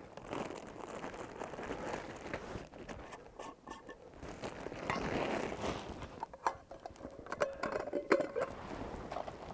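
Plastic bag rustling and crinkling as it is handled, with irregular crackles and clicks that grow busier in the second half.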